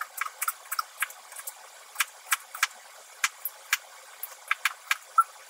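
Kitchen knife striking a plastic cutting board as a carrot is cut into thin strips, sped up: sharp, irregular clicks, about three or four a second.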